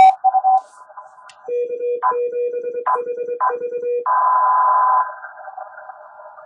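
Morse code (CW) from an Index Labs QRP+ transceiver: a low keyed sidetone sends a short run of dots and dashes from about a second and a half in to about four seconds, and the receiver's narrow-filtered band hiss cuts out while it keys. A sharp click comes right at the start, and after the keying a louder rush of band hiss lasts about a second before settling back to a quieter hiss.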